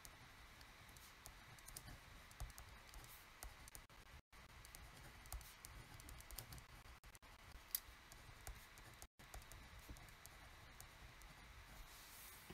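Faint scratching and light ticking of a pen writing on a paper pad.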